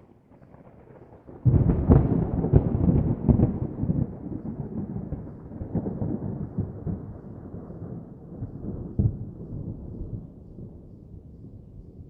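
Thunder: a faint low rumble, then a sudden loud clap about a second and a half in. The clap breaks into crackles over a rolling rumble that slowly dies away.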